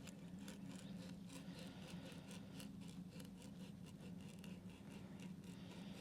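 Faint, irregular clicking and scratching as a caught blue catfish is handled and checked for air before release, over a low steady hum.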